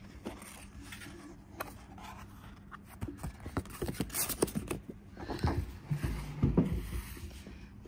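A paperback picture book being handled and its cover turned over: paper rustling and scraping with small clicks, then a few low bumps as the book is laid open.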